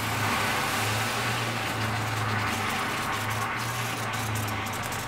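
A stream of water pouring into a glass bowl of caustic soda pearls, splashing and frothing as it mixes a paint-stripping solution; the pour thins out near the end. A steady low hum runs underneath.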